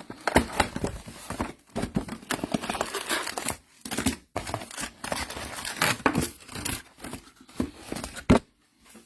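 Plastic wrapping on a trading-card hobby box crinkling and tearing in irregular bursts as the box is opened, with one sharper crackle near the end.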